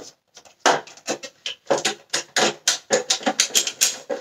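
Hard plastic parts of a Dyson Cinetic Big Ball cyclone assembly clicking and clattering, a rapid irregular run of sharp knocks starting about half a second in, as a cyclone stage still held on is wiggled back and forth to work it free.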